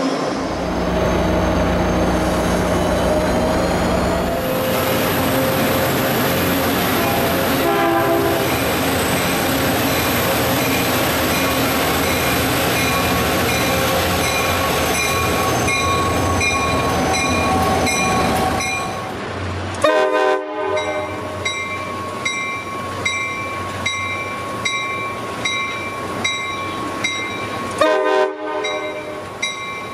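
Passenger trains at station platforms: an electric BART train running at first, then diesel-hauled commuter trains, with a train horn blown in a long string of short toots through the second half. The toots are a crew's horn salute to a trackside railfan.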